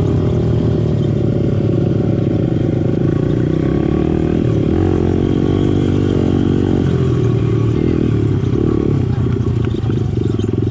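Small dirt bike engine running while the bike is ridden over a gravel trail, its pitch shifting a little with the throttle.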